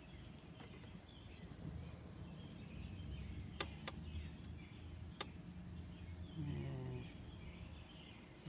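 Faint outdoor ambience: a steady low rumble with short high bird chirps now and then, and three sharp clicks in the middle.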